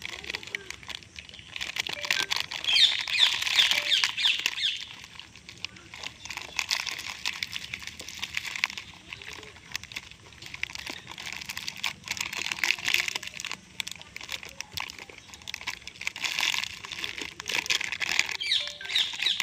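Foil-lined plastic snack packet of aloo bhujia crinkling and crackling as a rhesus macaque's hands rummage in it and pull out the fried noodles. The crinkling comes in repeated louder bursts with small clicks and rustles between.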